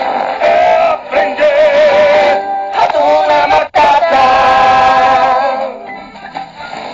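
Singing voices holding long notes with vibrato over the song's backing music, with a brief break about halfway through. Near the end the song fades out.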